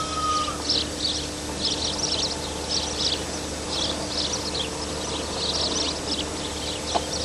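Short, high chirps repeating about twice a second from a grassy summer meadow, over a faint steady hum. A thin high tone fades out about half a second in.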